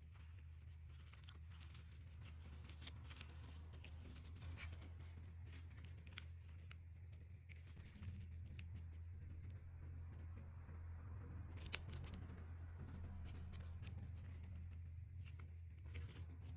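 Slime being handled and mixed, giving faint irregular sticky clicks and crackles, one sharper click near the end, over a low steady hum.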